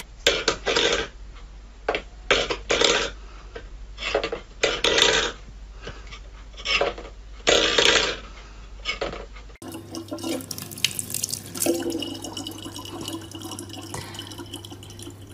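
A metal bowl clattering and scraping on a wooden floor in irregular bursts as a cat paws it about. About ten seconds in, this gives way to a tap running a thin, steady stream of water into a plastic bottle.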